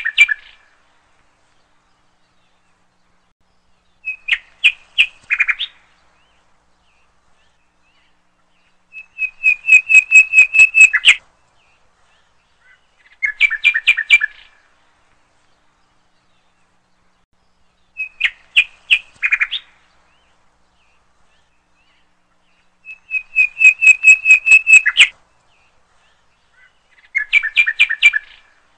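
Eagle calling: a fast run of high, clear piping notes in bursts of one to two seconds, coming back about every four to five seconds.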